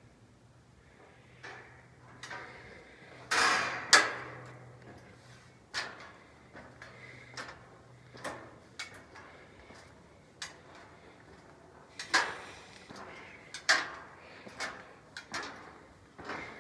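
Footsteps climbing the stairs of an observation tower: irregular knocks and thuds, roughly one or two a second, each ringing briefly. The loudest pair comes about three to four seconds in.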